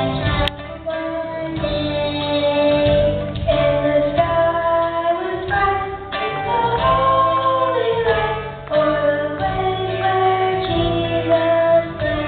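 Children's choir singing a song over instrumental accompaniment, with a child singing lead into a microphone.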